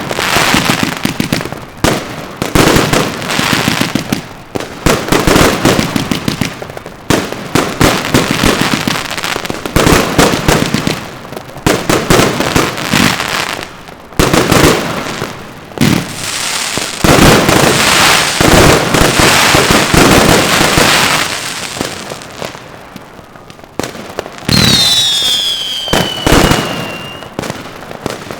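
Consumer firework batteries firing: a dense run of launch thuds, bangs and crackling that eases off about 22 seconds in. Then a fresh shot goes off, followed by several whistles falling in pitch.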